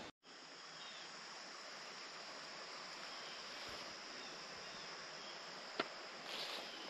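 Steady high-pitched insect chorus, with a single sharp click about six seconds in.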